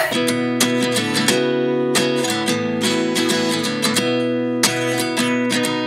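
Background music: an acoustic guitar picking a steady pattern of notes and chords, the instrumental lead-in to a sung pop song.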